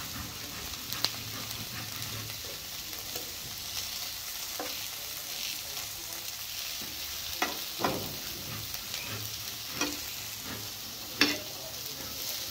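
Food frying in oil in a pan with a steady sizzle. A spatula stirs it, knocking against the pan about six times.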